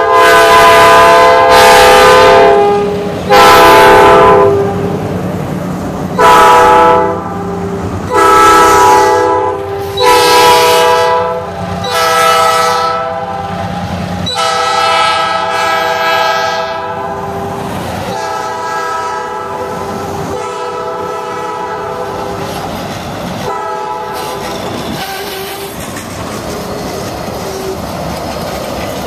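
Diesel passenger locomotive's multi-tone air horn sounding a series of blasts as the train passes, the first about three seconds long and the rest about a second each, fading out about halfway through. Then the passenger cars roll past with steady rail noise and the clack of wheels over rail joints.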